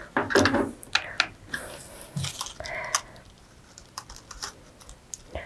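Crepe paper petals being handled and pressed onto a paper flower by hand: irregular crinkling and rustling with small crisp clicks, busiest in the first three seconds.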